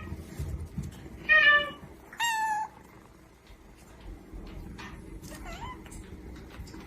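Cat meowing: two loud, short meows about a second apart, the second higher, then a fainter wavering meow a few seconds later.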